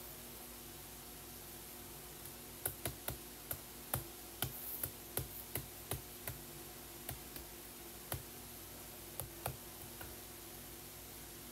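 An irregular run of sharp, quick taps and clicks close to the microphone, starting about three seconds in and thinning out by about nine and a half seconds. A steady low hum sits under them.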